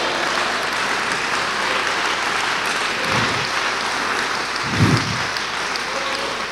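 Congregation applauding: steady, dense clapping in answer to a call to praise.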